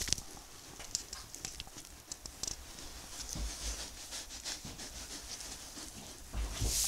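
Straw bedding rustling and crackling with scattered light clicks and soft thuds as a ewe in labour shifts about, with a louder brushing rustle near the end.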